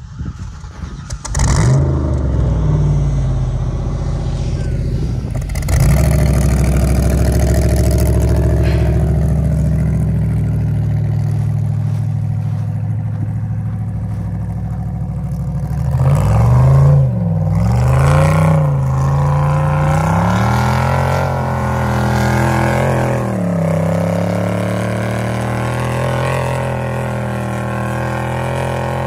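Ultra4 race buggy's engine running hard while the buggy drifts on snow-covered lake ice, the revs rising and falling again and again. It comes in loud about a second and a half in, with the biggest surges of revving a little past halfway.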